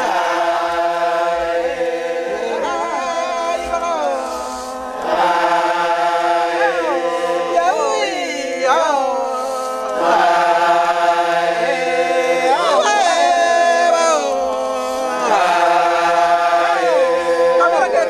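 A group of Papuan men chanting together in long held notes, each phrase ending in a downward slide, with short breaks between phrases.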